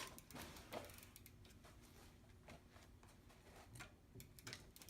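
Near silence with a few faint, scattered metallic clicks and taps from a pedal wrench working a bicycle's drive-side pedal loose.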